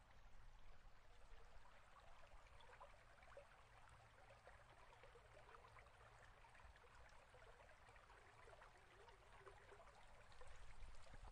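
Near silence: a faint, even crackly hiss over a low hum.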